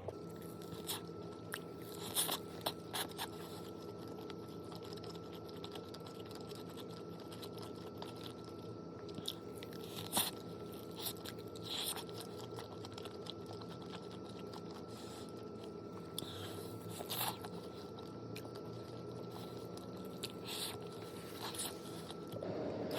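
A person chewing and biting crunchy food, with scattered sharp crunches heard over a steady low hum.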